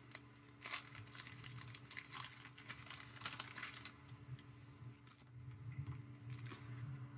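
Waxed-paper wrapper of a 1987 Topps baseball card pack being torn open and crinkled by hand: faint, irregular crackling ticks, thickest in the first few seconds, over a low steady hum.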